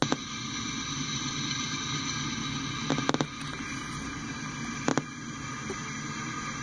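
Freight train of tank cars rolling through a grade crossing: steady running noise, with a cluster of sharp clicks about three seconds in and another pair about five seconds in, as of wheels passing over rail joints.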